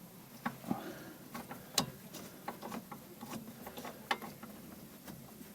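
Socket ratchet clicking irregularly as bolts are unscrewed from a car's front wheel hub, with light metal clinks of the tool and a sharper click about two seconds in.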